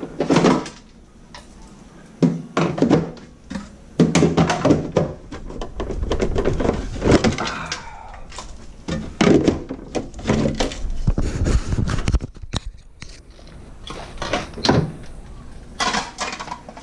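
Irregular knocks, thuds and clatters of items and shelving being handled in a refrigerator and dropped into a trash bag.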